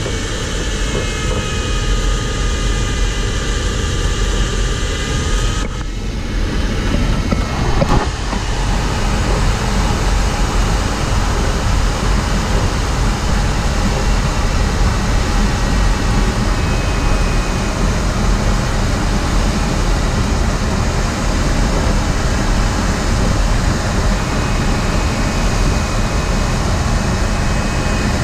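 Steady rush of air around a sailplane's cockpit in flight, with a faint wavering variometer tone. The noise grows fuller after a short knock about eight seconds in.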